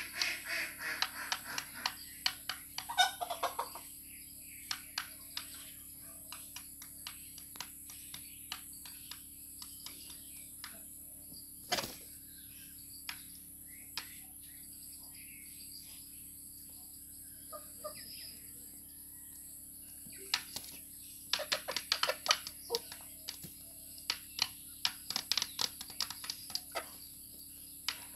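Chickens pecking food from a bowl: rapid sharp taps of beaks against the bowl in quick runs near the start and again over the last several seconds, with only scattered pecks in between. A few clucks are heard near the start.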